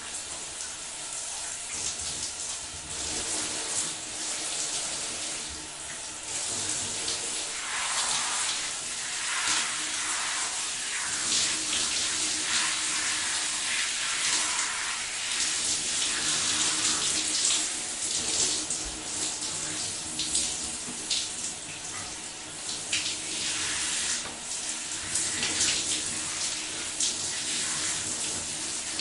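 Shower water spraying steadily from an overhead shower head and splashing, a continuous hiss that swells and dips unevenly.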